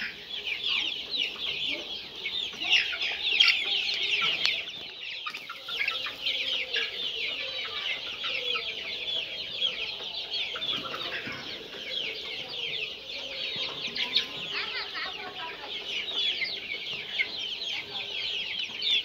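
A large flock of two-month-old Giriraja and Gramapriya chickens cheeping without a break: many short, high, falling peeps overlapping in a dense chorus.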